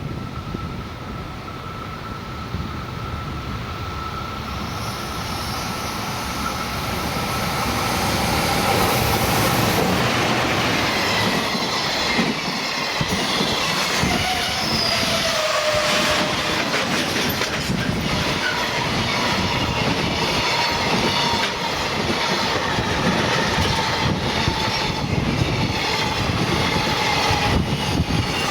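Electric-locomotive-hauled freight train passing close by, growing louder over the first several seconds, then a long run of wagons with wheels clicking over the rail joints and a faint squeal from the wheels.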